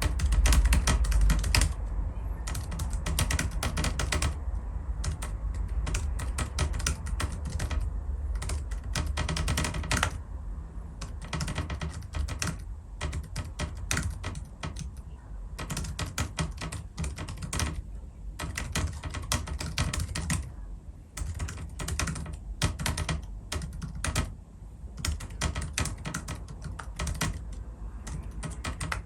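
Rapoo 9000M mobile keyboard being typed on fast and steadily: a dense run of key clicks, broken by short pauses about twenty and twenty-four seconds in.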